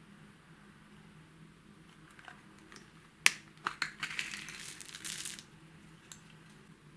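Hands handling makeup: a sharp snap about three seconds in, a few lighter clicks, then a crackling crunch for about a second and a half, and one more click near the end.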